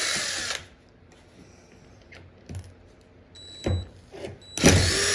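Dewalt power drill run at full trigger, whining at high speed, then let off about half a second in. A short buzz follows a few seconds later, and the drill is run hard again near the end.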